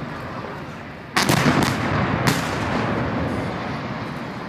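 Explosive demolition charges going off at the cooling towers: a quick cluster of sharp bangs about a second in and a single crack about a second later, over a rolling rumble that carries their echo.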